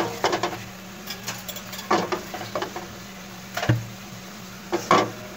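Several separate light clicks and knocks over a steady low hum, with a heavier knock a little past the middle.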